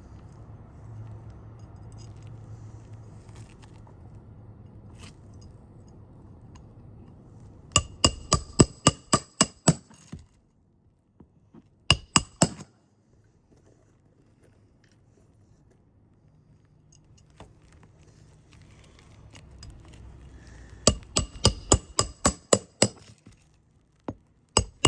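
Hammer driving roofing nails into asphalt shingles: two quick runs of about ten ringing metal-on-metal strikes, a few seconds apart, with a couple of single blows between and at the end.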